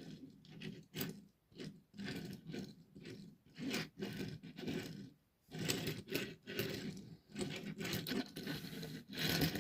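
Hands handling a diecast model car and its packaging: irregular scraping and rubbing with small clicks and knocks, in short bursts with brief pauses between them.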